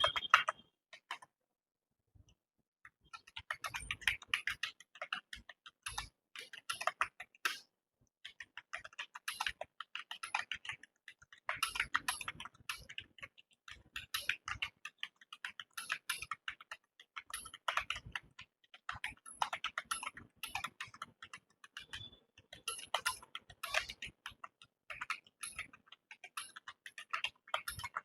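Fast touch-typing on a computer keyboard: dense, continuous runs of keystrokes, with a pause of about a second and a half near the start.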